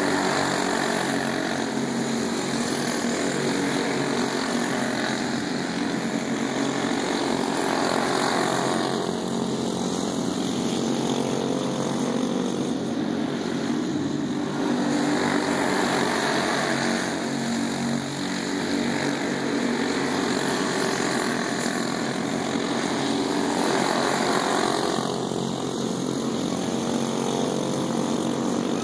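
The small engines of several racing go-karts running flat out around the track, a steady buzzing engine note that swells every several seconds as the pack passes close and fades as it goes away.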